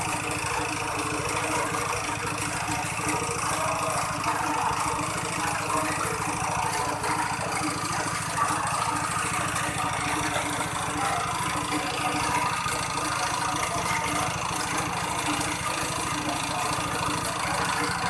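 Small petrol engine running steadily, driving a coffee pulper that is stripping the skins from wet coffee cherries.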